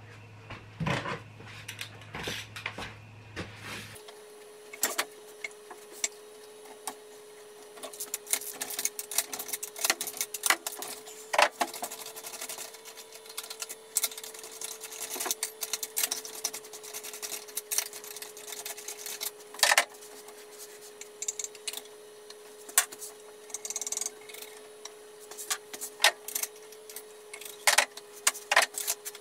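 Hand tools clicking and knocking irregularly as spark plugs are unscrewed from a car engine, with a faint steady hum starting about four seconds in.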